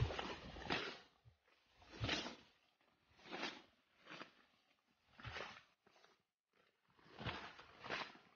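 Footsteps pushing through dense leafy undergrowth: a faint rustling swish of leaves and stems with each stride, about one every second, sometimes with a soft thud of the foot.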